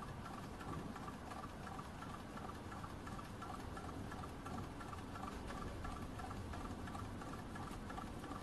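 STARPOWER QX6 mini hot-air Stirling engine running on its methylated-spirit burner, its moving parts making a faint, quick, even ticking.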